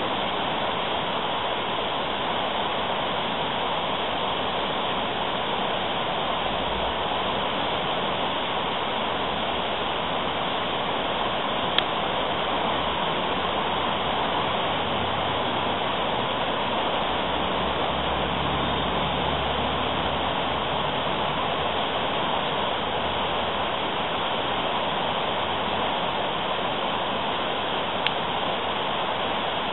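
Steady rush of white water pouring through a river standing wave. Two short clicks stand out, one about twelve seconds in and one near the end.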